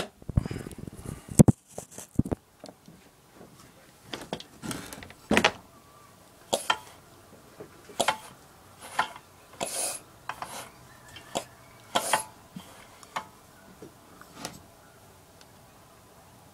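Knocks and clatter as a camera is set down, then a series of short scrapes and rubs from hands working on a small engine, which stop about 14 seconds in.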